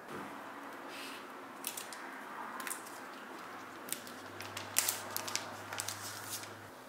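Hands handling a Google Nest Hub smart display: a run of small clicks, taps and crackly rustles of plastic being handled, thickest in the second half. A faint low hum comes in about four seconds in and stops just before the end.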